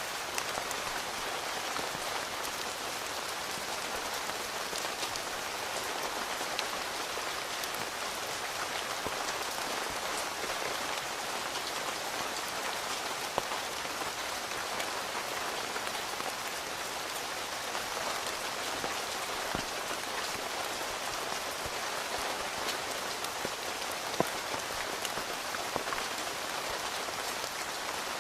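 Steady rain pattering on a tent, with scattered single drops ticking on the fabric and two sharper drop hits, one near the middle and one near the end.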